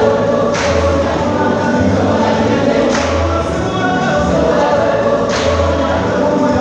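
A full choir singing a gospel song, with a low accented beat about every two and a half seconds.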